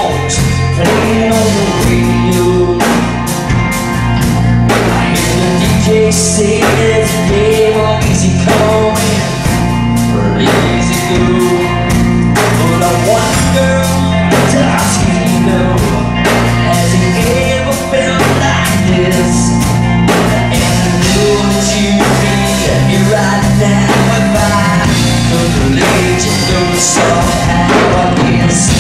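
Live band playing a rock song: a singer over a steady drum beat and bass.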